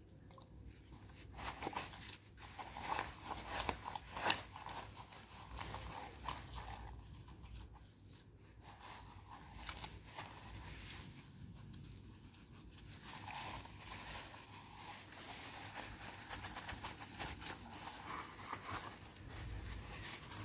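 Wet sand crunching and squelching as a black heeled boot is pressed into it and scraped through it by hand, in irregular crackles and scrapes that are loudest in the first few seconds.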